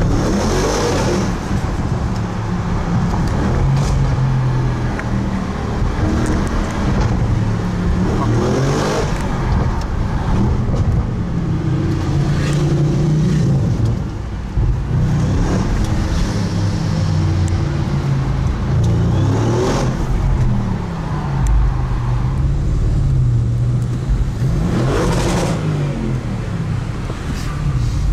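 Audi RS7 Performance's twin-turbo 4.0 V8 heard from inside the cabin while driving through town, its pitch rising and falling as it accelerates, eases off and shifts. A few brief louder swells come and go, as other traffic passes close by.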